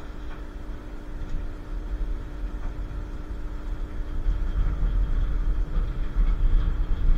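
Historic Basel tram running on its tracks: a steady low rumble with a constant hum, growing louder about four seconds in.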